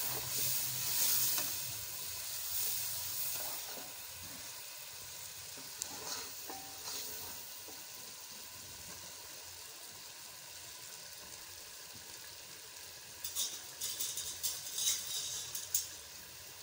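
Onion-and-spice masala sizzling in ghee in a pot while a wooden spoon stirs it, louder for the first few seconds, then a steady quieter sizzle. Near the end there is a run of sharp crackles and pops. The masala is being fried down until the ghee separates.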